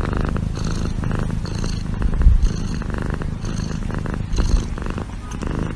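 Domestic cat purring steadily, in rapid fine pulses that swell and ease about once a second with its breathing.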